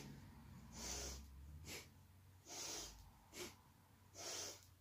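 A woman breathing deeply in and out in a steady rhythm, paced to an exercise. There is an audible breath about every second, long breaths alternating with short, sharp ones.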